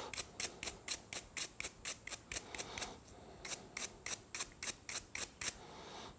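Quick, even hand scraping strokes, about four a second, working baked-on grime off petrol-soaked mower-blade bolts and washers. The strokes pause briefly about three seconds in, then run on for another two seconds.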